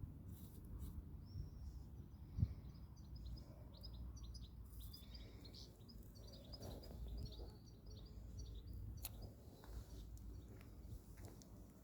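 Small birds chirping, many short high calls in quick succession, over a low steady rumble.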